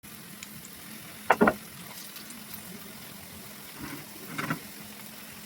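A steady hiss with a faint low hum, broken by two short clattering knocks: a loud double knock just over a second in, and a softer cluster near four seconds.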